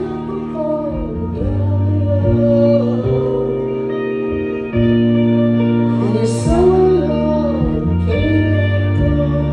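Live band playing a slow song, with sustained guitar chords, a bass line and a sung melody.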